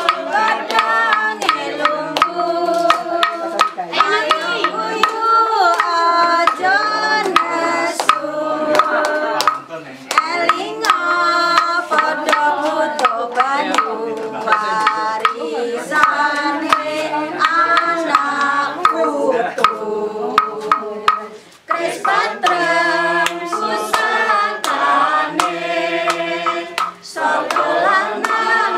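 A group of men and women singing a song together from lyric sheets, with a steady percussive beat under the voices.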